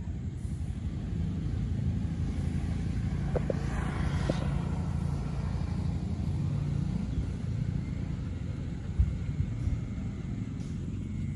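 Steady low rumble of a vehicle engine, louder for a moment about four seconds in.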